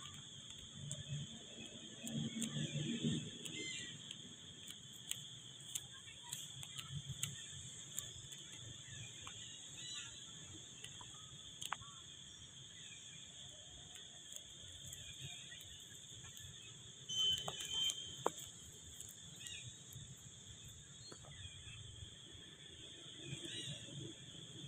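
Steady, high-pitched insect drone, with a faint low murmur of distant voices a couple of seconds in and scattered light clicks and rustles.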